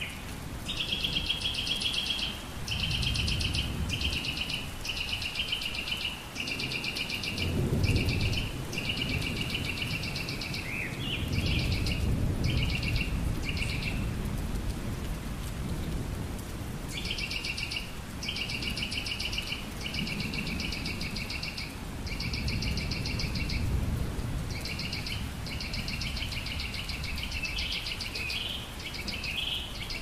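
A songbird singing rapid trilled phrases about a second long, repeated with short gaps and a longer pause about halfway through, over steady rain with low rolls of distant thunder.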